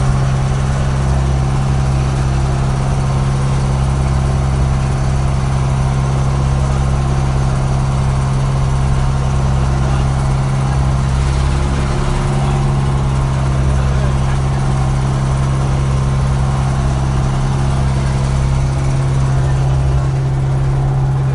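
Thai motor boat engine running steadily at constant speed: a strong, even low hum with a pulsing rumble beneath it.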